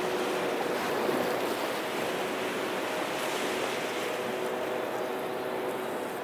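Black Sea waves washing steadily onto the shore, with a steady hum holding a few pitches underneath.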